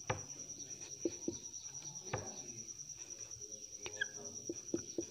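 Marker pen writing on a whiteboard: faint taps and scratches of the tip now and then, over a steady high-pitched trill.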